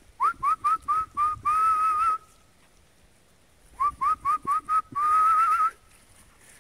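A person whistling to call the dogs: two identical phrases a few seconds apart, each a run of five quick rising notes followed by a longer warbling note.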